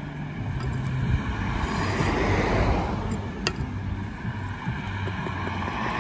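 Road traffic: a car passing on the road, its tyre and engine noise swelling to a peak midway and fading again over a low steady hum. One sharp tap about three and a half seconds in.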